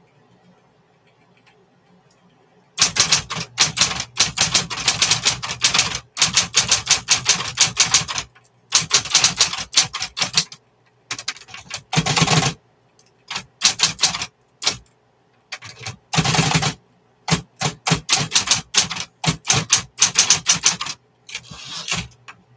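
A 1960s Smith-Corona Coronet Electric typewriter being typed on, starting about three seconds in: quick runs of sharp keystrokes broken by short pauses. A faint steady hum carries on between the runs.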